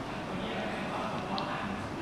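Faint, indistinct voices over a steady room hum, with one brief high squeak about two-thirds of the way through.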